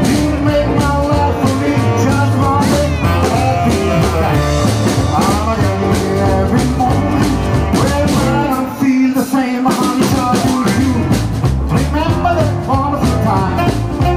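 Live rock and roll band (piano, saxophone, guitar, bass and drums) playing an uptempo 1950s-style number, with a man singing into the microphone. A little past halfway the bass and drums drop out for about a second in a stop-time break, then the full band comes back in.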